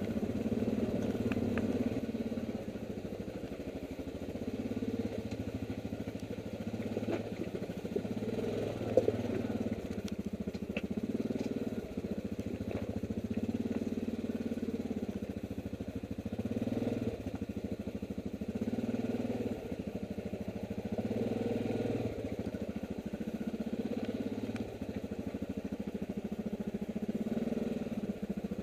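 ATV engine running at low revs over rocky ground, its sound swelling and dipping every second or two as the throttle is worked. A few knocks and rattles come from the machine over the rocks, with one sharp knock about nine seconds in.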